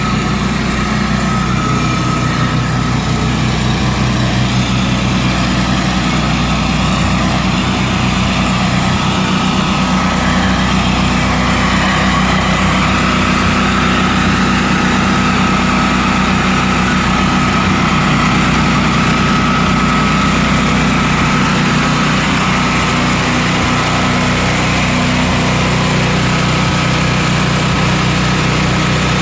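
Three portable generators running together at a steady, loud drone, about 90 decibels, with a steady high whine over the engine hum.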